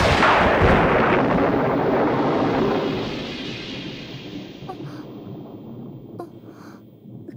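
A thunderclap: a sudden crack followed by a long rumble that fades gradually over several seconds.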